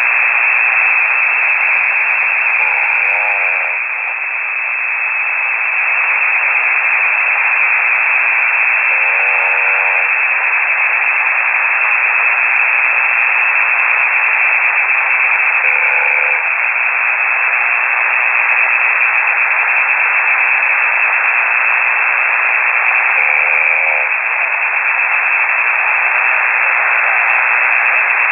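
Steady hiss and static from a shortwave receiver in single-sideband mode, cut off sharply above the voice band. Faint wavering tones come through every six or seven seconds.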